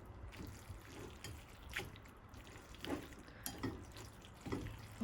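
Noodles being tossed and mixed with a thick sauce and spinach: faint, wet squelching with light clicks of the utensils against the bowl, about once a second.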